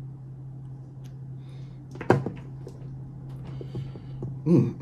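A single sharp knock about two seconds in, followed by a few light clicks, over a steady low hum.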